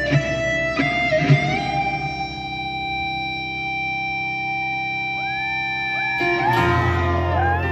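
Electric guitar solo played live. A few quick picked notes lead into one long sustained note held for about four seconds. Near the end come bent notes that slide up and down, as low accompaniment comes in under them.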